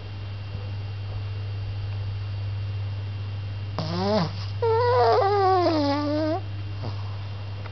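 Sleeping pug snoring with pitched, squeaky whines: a short one about four seconds in, then a longer wavering one that falls in pitch. A steady low hum runs underneath.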